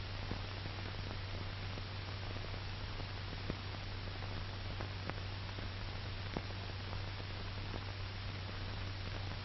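Steady hiss and low hum of an old film soundtrack, with a few faint scattered clicks.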